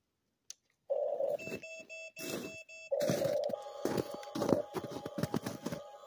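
RC toy bulldozer's small electric motors whining in starts and stops, with steady high electronic tones and a run of clicking and crunching from gears and cleated tracks in snow as the blade lifts. It begins after about a second of silence.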